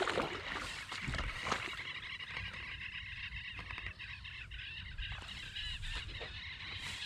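A flock of wild waterbirds calling continuously, a dense chatter of short high calls, over a low rumble of wind, with a few steps through wet grass and water in the first second or so.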